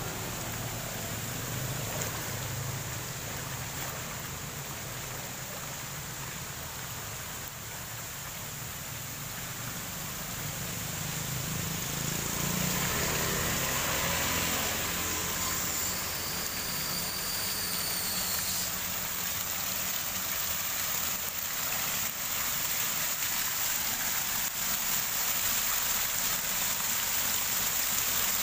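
Brown floodwater rushing and spilling over a kerb onto a flooded road, a steady rush of water that grows louder partway through. A motorbike rides through the water about halfway in.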